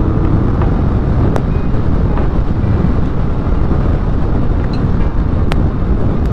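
Kawasaki ER-6n's parallel-twin engine running steadily at road speed, heard from the rider's seat and mixed with heavy wind rush on the camera microphone. Two short ticks, about a second in and past five seconds.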